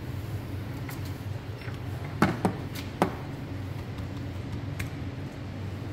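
A handful of sharp clicks from a computer keyboard and mouse, the loudest a little over two seconds in and at about three seconds, over a steady low hum.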